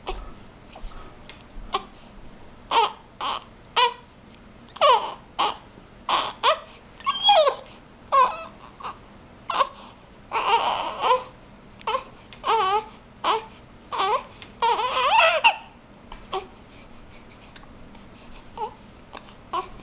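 Newborn baby fussing: a string of short, wavering cries, growing longer and louder about ten to fifteen seconds in, then dying down to a few faint whimpers.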